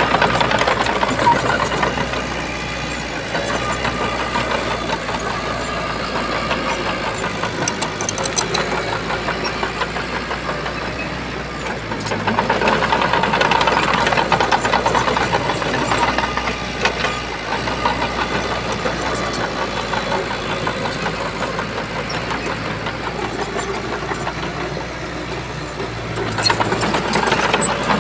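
Shantui bulldozer's diesel engine running hard as it works sand, swelling louder under load three times: near the start, about halfway, and near the end.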